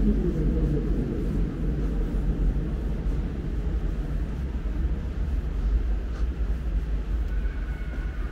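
Steady low rumble, even in level throughout.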